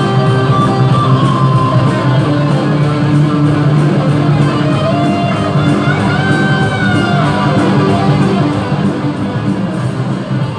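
Instrumental music, with sustained low notes under a wavering melody line.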